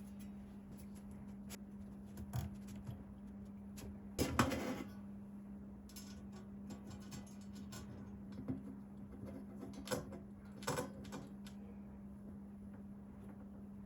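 Scattered small clicks and knocks of PC parts being handled during assembly, with a brief louder scraping rustle about four seconds in and a few sharper clicks near the end. A steady low hum runs underneath.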